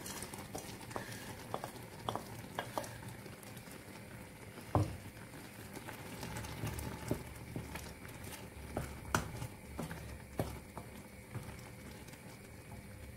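Apples boiling down in sugar syrup in a stainless saucepan, bubbling and sizzling, while a wooden spoon stirs in chopped walnuts, with scattered light clicks and scrapes of the spoon against the pot and one louder knock about five seconds in.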